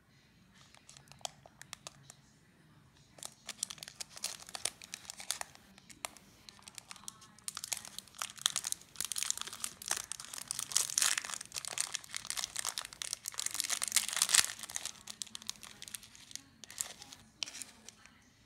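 A Raffaello candy's white twist wrapper crinkling and crackling as it is unwrapped by hand. The crackles are scattered at first, then become dense and loudest from about halfway through, and thin out to a few near the end.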